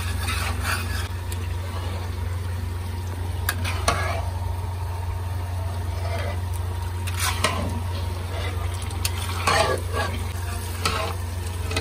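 Metal spoon stirring and scraping makhaddi halwa, semolina frying in ghee, around an iron wok: a soft frying sizzle with irregular scrapes of the spoon on the pan, the loudest about 7 and 9.5 seconds in. A steady low hum runs underneath.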